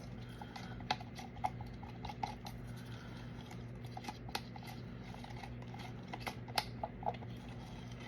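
A squishy silicone resin mold being handled: scattered light clicks and taps, a few sharper ones, over a steady low hum.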